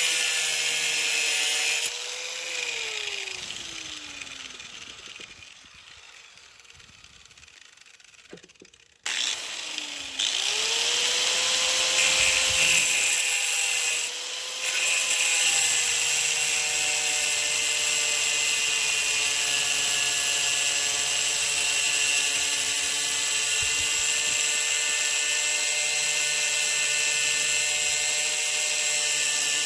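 Electric grinder cutting off the broken end of a bolt clamped in a vise. About two seconds in it is switched off and winds down with a falling whine. About nine seconds in it is started again, whines up to speed and runs steadily, grinding through the metal.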